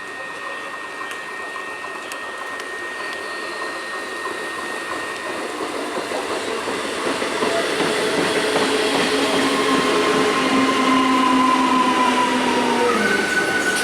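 ICF Medha electric multiple unit train coming closer and going by over a hiss of heavy rain. It gets louder through the second half, with steady whining tones from its electric traction gear that dip in pitch near the end as it passes.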